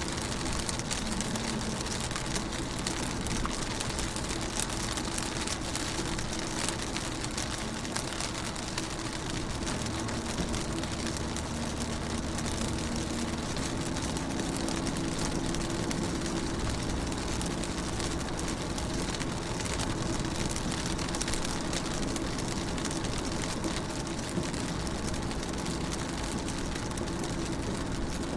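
Rain falling on a car's windows, a steady hiss of many small drop ticks, over a low steady drone whose pitch shifts slightly about halfway through.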